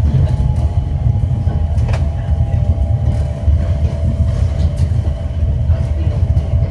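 Yurikamome rubber-tyred automated guideway train running, heard from inside the car: a steady low rumble with a faint steady whine over it, and a single sharp click about two seconds in.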